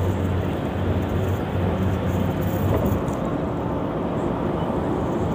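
Steady rumble of a car in motion, with road and engine noise and a low hum.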